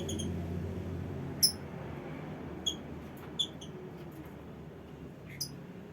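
Lovebirds giving short, shrill chirps, about five spread over several seconds, the loudest about a second and a half in, over a steady low background rumble.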